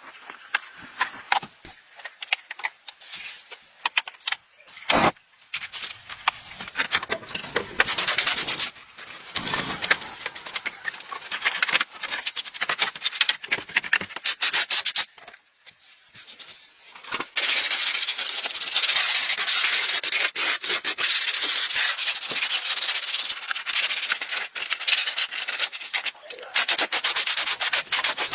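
Harsh abrasive scraping on a hard surface: a dense, rapid rasp that comes in spells, with a brief pause about halfway through, then a long, loud stretch.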